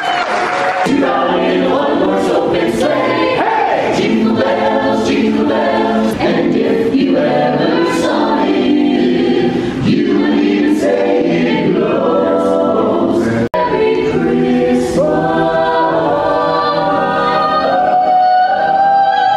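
Mixed a cappella vocal ensemble of men and women singing a Christmas carol in close harmony, ending on long held chords. The sound cuts out for a split second about two-thirds of the way through.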